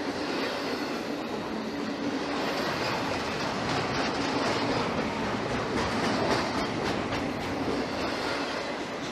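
Norfolk Southern freight train cars rolling steadily past, steel wheels on rail with scattered clicks over the rail joints.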